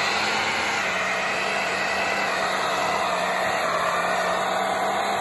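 Car engine held at high, steady revs while its driven wheels spin in a burnout, the tyres screeching without a break.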